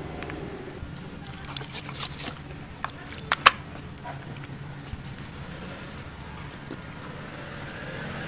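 A knife cutting and scraping along the thick skin of a giant ocean sunfish, with a run of sharp clicks and knocks between about one and a half and three and a half seconds in, the last the loudest, over a steady low hum.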